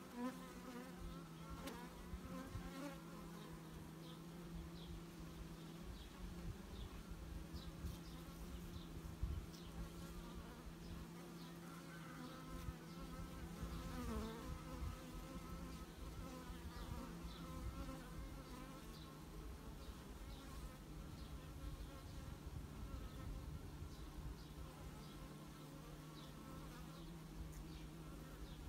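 Carpathian honeybees buzzing steadily around an opened hive, with a small knock about nine seconds in.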